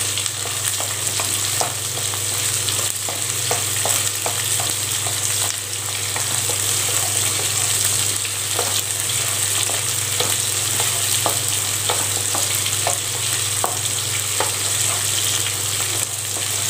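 Shallots and garlic sizzling in hot sesame oil in a kadai as they sauté, with a wooden spatula stirring and scraping against the pan in quick clicks, several a second. A steady low hum runs underneath.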